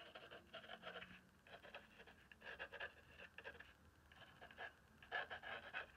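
Faint scratching of a fine-line applicator bottle's tip on paper, in small clusters of short strokes as it draws ink lines.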